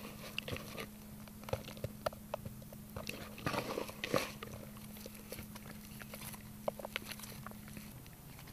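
Hands kneading a soft breadcrumb-and-cheese dough bait in a plastic bowl: irregular soft squelches and clicks, thinning out near the end.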